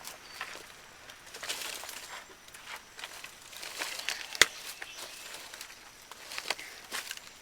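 Footsteps and rustling outdoors, with scattered light clicks and one sharp snap about four seconds in.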